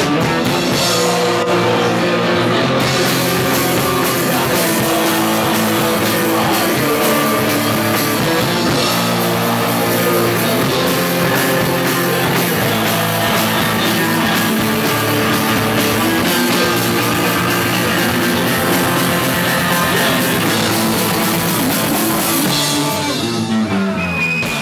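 Punk rock band playing live: distorted electric guitars and a drum kit at full volume. Near the end the band drops away as the song finishes.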